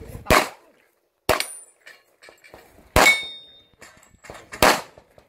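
Four handgun shots fired during an IPSC stage, spaced irregularly about one to two seconds apart, with a brief high metallic ring after the second and third.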